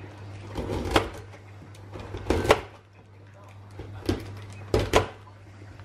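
Kitchen knife slicing through carrots on paper over a stainless steel sink drainer: about five sharp knocks at uneven intervals as the blade cuts through and hits the steel, over a steady low hum.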